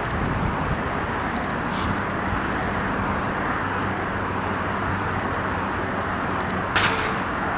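Steady outdoor background noise with a faint low hum, and one sharp crack near the end.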